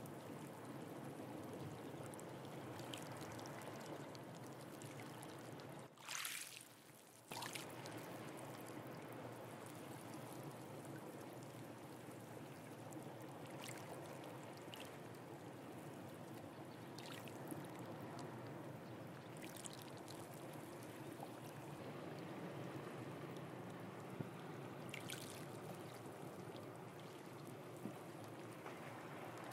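Sea water washing and trickling among shore rocks and tide pools, a steady wash with a few faint short splashes. The sound drops out abruptly for about a second around six seconds in, then resumes.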